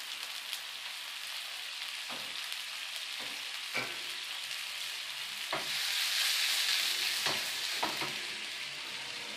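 Fried egg and sliced spring onions sizzling in a nonstick frying pan with a freshly poured sweet and salty soy sauce mix cooking in the hot oil. The steady hiss swells for about two seconds in the middle, with several sharp clicks along the way.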